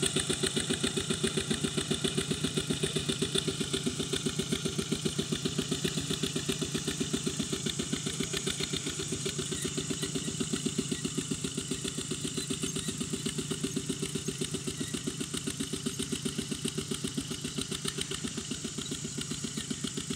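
Two-wheel walk-behind tractor's single-cylinder diesel engine running steadily with a fast, even chugging as it pulls a tiller through the field, growing slightly fainter as it moves away.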